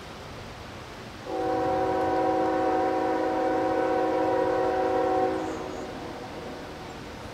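Diesel locomotive air horn sounding one long blast, a chord of several notes, starting about a second in and lasting about four seconds before fading away.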